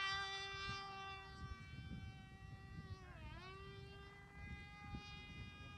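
Cox .020 Pee Wee two-stroke glow engine of a free-flight model running in flight, a thin, steady, high buzz. Its pitch dips briefly about three seconds in and then comes back up.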